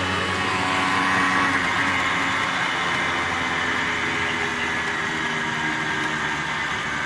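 Engine of a small green open-cab vehicle running steadily while being driven along a road, heard from inside the cab, its pitch shifting a little.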